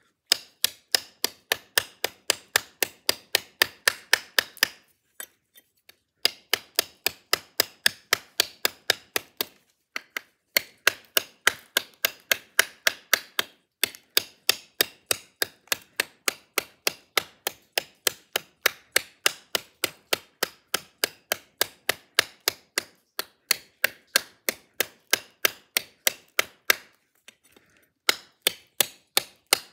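Spyderco high impact ceramic Mule Team blade chopping into a piece of wood: rapid sharp knocks, about three a second, in runs of several seconds broken by short pauses.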